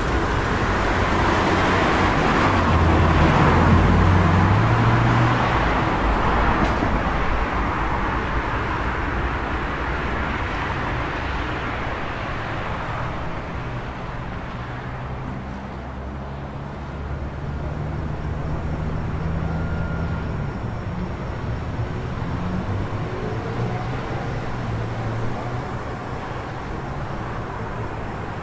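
City street traffic: a vehicle passes, loudest a few seconds in, then fades into a steady wash of traffic noise with a low engine drone.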